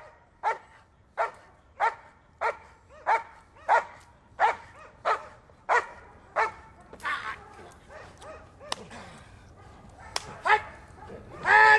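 German Shepherd barking hard and rhythmically, about one bark every two-thirds of a second, while sitting in front of the helper at the blind: the Schutzhund bark-and-hold. After about six and a half seconds the barks become sparse, with a couple more and a longer, louder outburst near the end.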